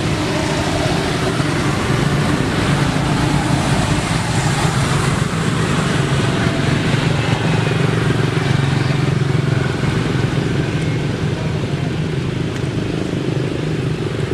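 An engine running steadily in the background, a continuous low drone that shifts a little in pitch.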